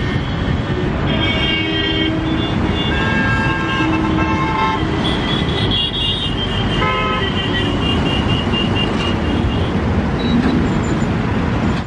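Busy highway traffic running steadily, with several vehicle horns giving long toots, some overlapping, from about one second in until past the middle.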